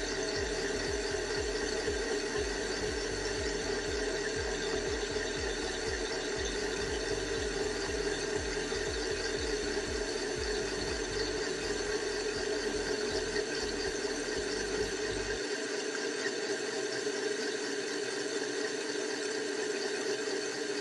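Homemade CNC lathe turning cast iron: a steady whine of the spindle and drive motors with the tool cutting. A low rapid throb underneath stops about three-quarters of the way through while the whine carries on.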